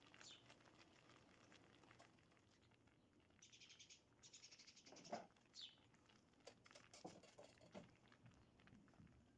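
Faint crackling and sizzling from kazandibi milk pudding bubbling at its caramelized edges in a hot frying pan, with the heat just turned off. A soft knock comes about five seconds in, and there are a couple of brief high chirps.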